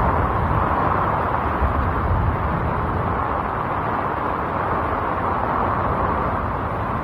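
Steady roar of a rainstorm and floodwater, with a heavy low rumble.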